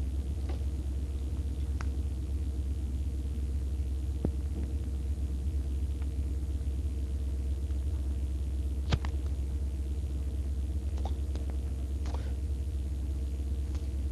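Steady low hum with a faint tone above it, and a single sharp click about nine seconds in as a cigarette lighter is struck.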